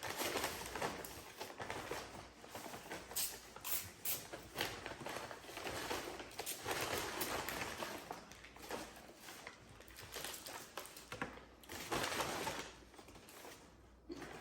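Paper bags and food wrappers rustling and crinkling in irregular bursts as takeaway food and sauce packets are unpacked.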